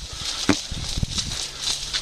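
Footsteps and rustling of brush and gear as a player moves on foot, with a sharp knock about half a second in.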